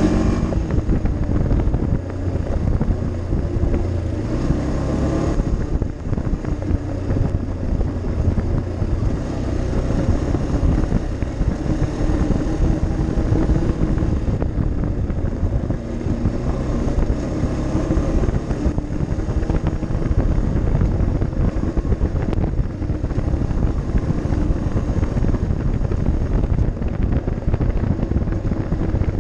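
ATV engine running steadily under way on a gravel trail, its pitch rising and falling a little with the throttle, with wind buffeting the microphone.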